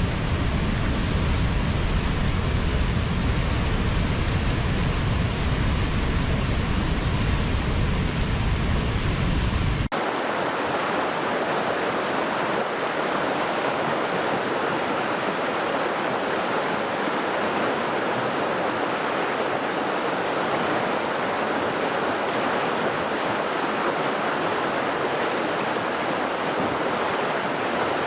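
Steady rushing water with no breaks. About ten seconds in it cuts abruptly from a deep, rumbling recording to a brighter, hissier one, like a waterfall giving way to a fast stream.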